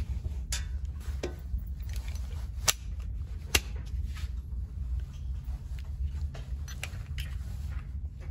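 Indoor pistol range: a steady low hum with a handful of short, sharp cracks, the two loudest about two and a half and three and a half seconds in.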